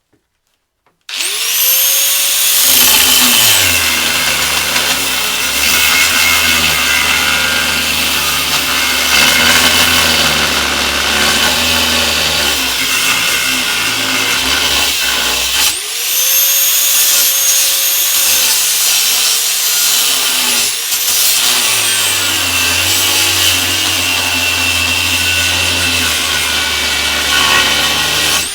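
Angle grinder with a cut-off disc cutting through a thick steel barn hinge. It spins up with a rising whine about a second in and cuts steadily, stops briefly about halfway, then spins up again and keeps cutting.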